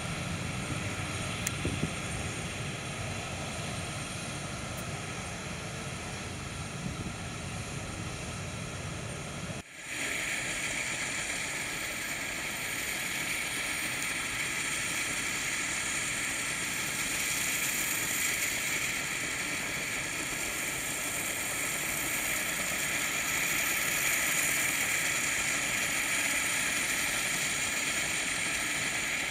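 Steady hiss and whine of a parked Boeing 737-400's auxiliary power unit running at the stand. After an edit about ten seconds in, the low rumble drops away and the high hiss is louder and steady.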